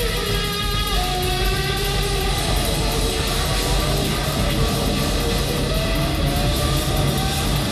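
Electric guitar played live through a loud rock PA: slow, sustained lead notes that bend and slide in pitch over a steady low drone.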